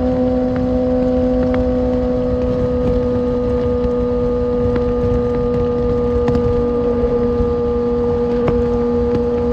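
Kawasaki Ninja ZX-6R's inline-four engine running at a steady, unchanging pitch while cruising on the highway, under a constant rush of wind and road noise.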